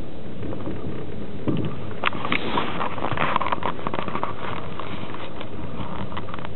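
Passenger train running at speed, heard from inside a platzkart sleeping carriage: a steady rumble of the wheels on the track, with a stretch of rattling clicks beginning about two seconds in and fading after a few seconds.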